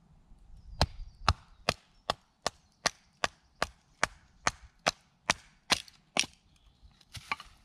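A wooden mallet knocking a knife's spine down through a short hazel stick, batoning it to split the wood: about fourteen sharp, evenly spaced knocks, a little over two a second, that stop about a second before the end, followed by a couple of faint taps.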